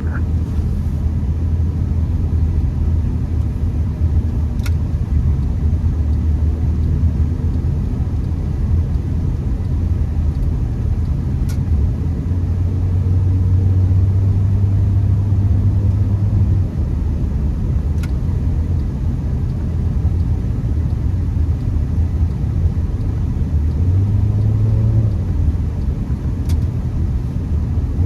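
Honda Accord driving, its engine and road noise making a steady low rumble. The engine note rises for a few seconds about halfway through and again near the end as the car picks up speed, with a few faint, widely spaced clicks.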